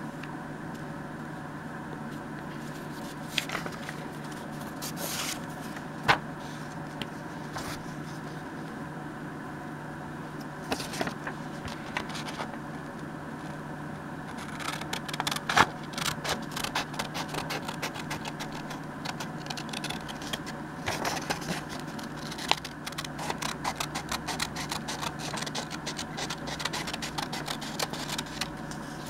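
Scissors snipping through a paper envelope, a quick run of short cuts from about halfway on, with a few scattered paper-handling clicks before that. A steady low hum runs underneath.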